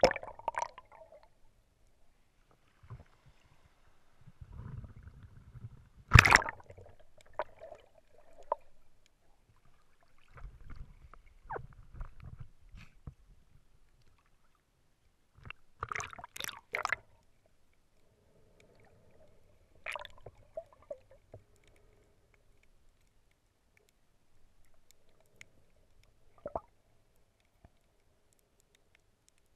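Muffled water noise picked up by an action camera in its waterproof housing while snorkeling: sloshing and gurgling with low rumbles. Several sharp knocks or splashes break in, the loudest about six seconds in, as the camera moves through the water and breaks the surface.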